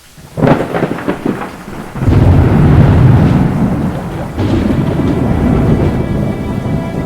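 Thunderstorm sound effect: a sharp thunderclap about half a second in, then a heavy low rumble of thunder with rain. A second crack comes past the middle.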